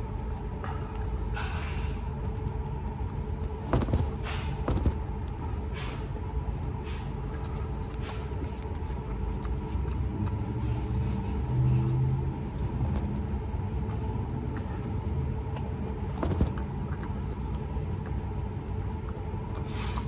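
Steady low rumble and faint constant hum of a fast-food restaurant dining room, with a few sharp clicks and small knocks from food being handled and eaten.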